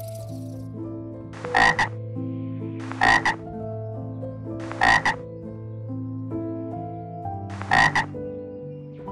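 Four loud frog croaks, each a quick double note, spaced about one and a half to three seconds apart, over background music with held notes.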